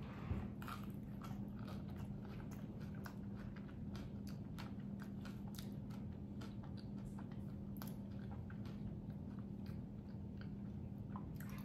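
Close-miked chewing of a crispy fried taquito: a crunchy bite at the start, then steady chewing full of small crunches. A faint steady low hum sits underneath.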